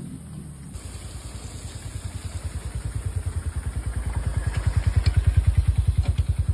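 Motorcycle engine running at low revs, an even low putter of about ten beats a second that sets in under a second in and grows louder as the bike comes close.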